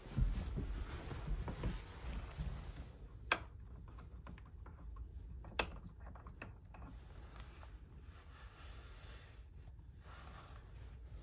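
Soft rustling, then two sharp clicks about two seconds apart and a few fainter ticks from the knobs of a bedside wall panel being switched, turning the bunk's lights on.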